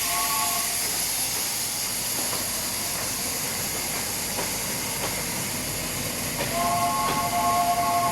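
Steam locomotive's whistle sounding a steady three-note chord. The chord cuts off in the first second and blows again about six and a half seconds in. In between there is a steady hiss with the running noise of the train and a few faint clicks.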